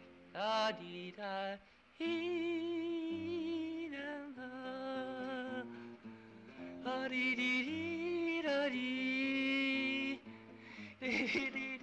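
Background music: a song with long held, wavering sung notes over a stepping bass line, with a short break about two seconds in and another near the end.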